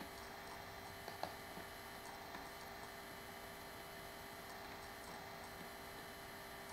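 Faint steady electrical hum, with a single soft click about a second in.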